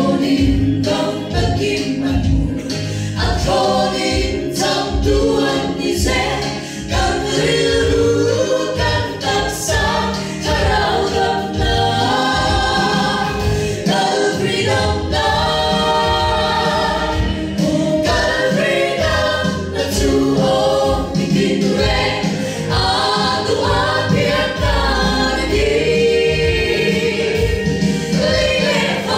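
A small gospel choir of women, joined by a man, singing a hymn together through handheld microphones.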